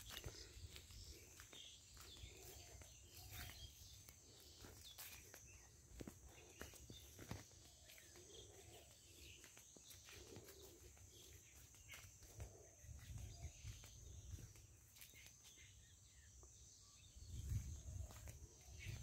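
Near silence: faint rural outdoor ambience, with wind rumbling on the phone microphone and soft footsteps through grass. The rumble grows louder near the end.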